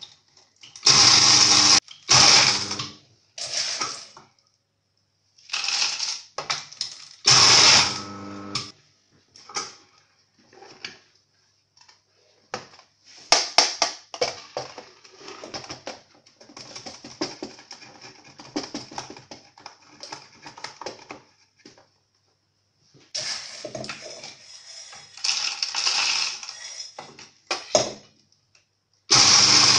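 Roasted cacao beans being cracked in an electric grinder: irregular bursts of crunching and rattling with short pauses between them as the beans are pushed through, then the machine running steadily near the end.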